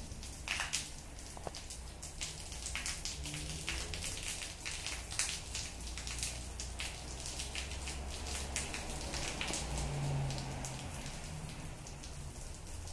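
Rain falling on a wet concrete patio: a steady patter of many separate drops hitting the ground.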